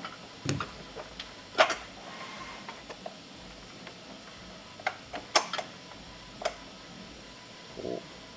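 Scattered sharp clicks and knocks of hands handling parts in a Tesla Model 3's 12V battery compartment as the new battery is fitted, the loudest about one and a half seconds in.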